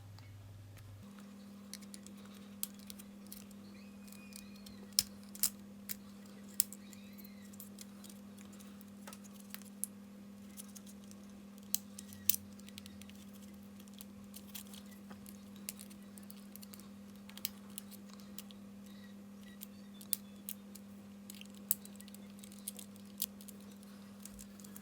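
Scattered small clicks and taps of a PS5 DualSense controller's plastic parts being handled and taken apart, over a faint steady electrical hum.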